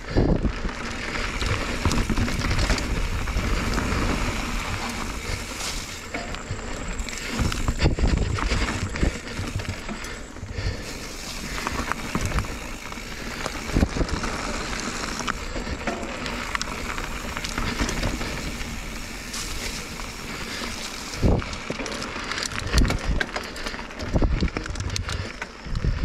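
Mountain bike rolling fast down a gravel and dirt trail: steady tyre noise on loose stones, with rattling and sharp knocks from the bike as it goes over bumps and roots, several of them loud.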